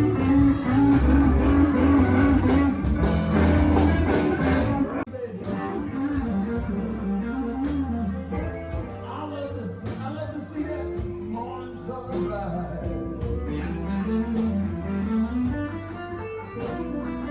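Guitar-led music in a blues-rock style, with singing, changing abruptly about five seconds in.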